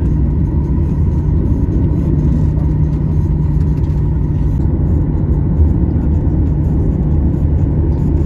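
Cabin noise of a Boeing 737-900ER taxiing, heard from a window seat over the wing: a steady low rumble from its CFM56-7B engines at taxi power, with a faint steady hum.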